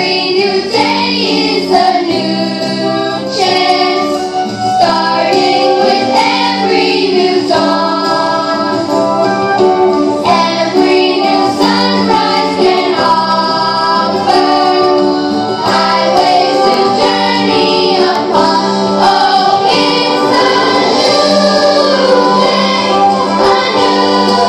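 A choir of children and young people singing together, with sung lines moving in pitch over steadily held notes.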